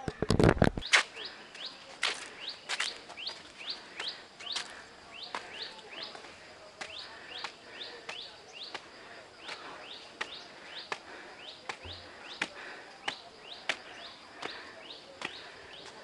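Small bird calling over and over in short rising chirps, about two to three a second, with a few loud knocks in the first second.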